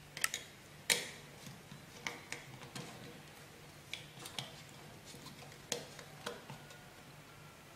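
Small sharp clicks and taps, irregularly spaced, from a screwdriver working the terminal screw of a plastic wall light switch as a wire is fastened in. A faint steady low hum lies underneath.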